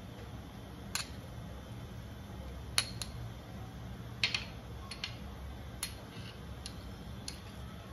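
A steel spoon clinking against a glass bowl as chopped green chillies are tipped in: eight or so short, sharp clinks, a small cluster about four seconds in, over a low steady hum.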